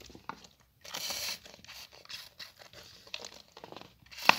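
Plastic bottle being handled over a plastic basin, crinkling and clicking, with a burst of crinkling about a second in and a sharp knock near the end.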